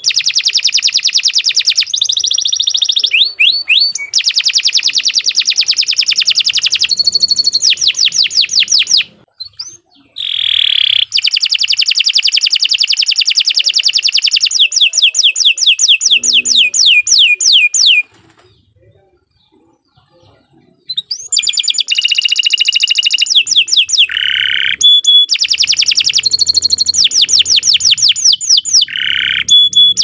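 Domestic canary singing long phrases of fast, high trills and rapid repeated notes, some sweeping down in pitch. The song breaks for about a second around nine seconds in and stops for about three seconds past the middle before resuming.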